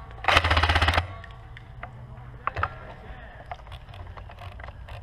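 A short burst of rapid automatic airsoft gunfire, under a second long, about a third of a second in, followed by a few scattered single clicks against a steady low rumble.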